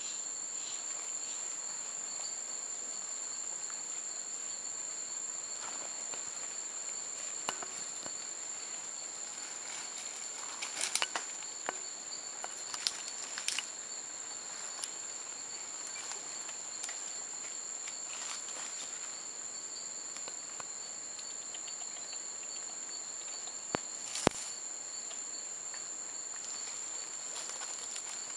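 Steady high-pitched drone of rainforest insects (cicadas or crickets) at two fixed pitches, with dry leaf litter and palm fronds crackling and snapping: a cluster of crackles around the middle and two sharp snaps near the end.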